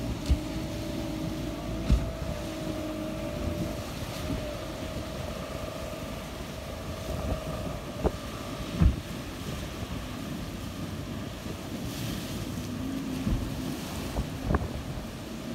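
Small boat's outboard motor running with a wavering whine that fades after a few seconds and comes back near the end, over waves breaking and wind on the microphone, which gives several sudden thumps.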